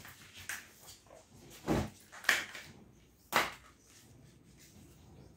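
Three separate knocks, the first a dull thud, from a child tossing her schoolbag onto a bed and kicking her sandals off onto a tiled floor.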